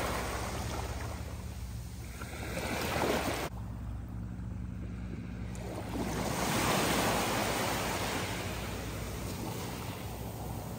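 Small waves breaking and washing up a sandy beach, the surf rising and falling with each wave, loudest about three seconds in and again past the middle.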